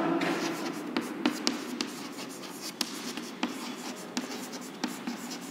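Chalk writing on a chalkboard: scratchy strokes broken by irregular sharp taps as letters are written.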